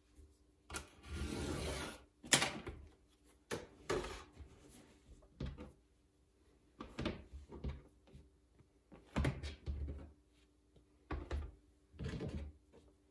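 Handling noise from hand-building clay slabs on a worktable: a scraping rub about a second in, a sharp knock just after it, then irregular knocks and short rubs every second or two.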